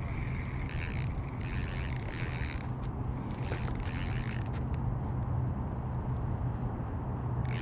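Fishing reel being cranked in spurts, each a fast ticking whir lasting about a second, while a hooked fish is reeled in.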